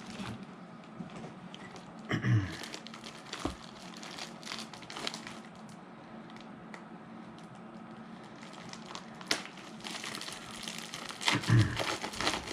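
Packaging being handled and opened: on-and-off crinkling of the wrapping, with scattered small clicks and crackles.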